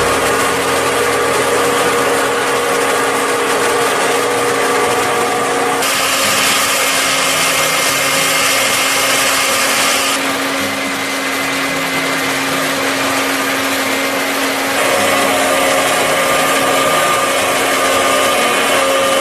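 Kuhn SPV 15.1 DL self-propelled TMR feed mixer's cutter head milling silage and loading it into the mixing tub, a steady mechanical whirring and grinding. The sound changes abruptly a few times.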